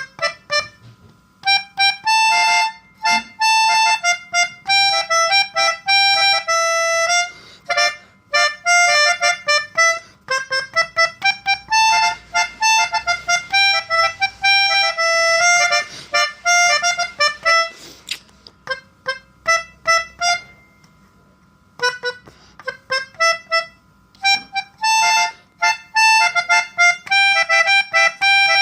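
Basuri telolet multi-tone bus horn playing melodic phrases of quick, stepping notes, in runs separated by short pauses, with a longer pause of a few seconds past the middle.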